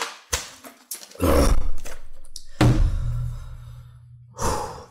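A man drinks from a plastic water bottle, then makes rough, low throat-clearing noises with a hoarse, sick voice, the last one a held low rasp that fades. A short breath comes near the end.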